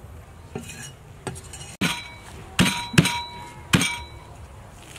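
Steel cleaver chopping green onions on a wooden chopping block: about six uneven chops, the last three loudest, each leaving the blade ringing briefly.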